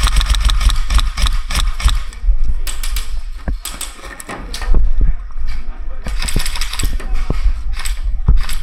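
Rapid bursts of clicking and rattling, typical of airsoft electric guns firing on full auto, with wind rumbling on the microphone.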